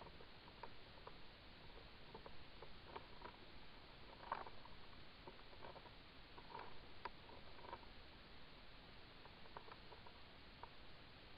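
Faint underwater ambience heard through a submerged camera: irregular soft clicks and taps over a steady low hiss, with the loudest tap about four seconds in.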